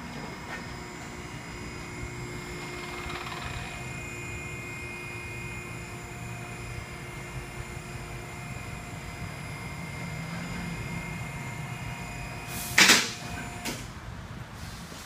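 Two-post car lift's hydraulic pump motor running steadily as it raises a car, a hum with a few held tones. Near the end comes a loud sharp noise, and the motor stops shortly after.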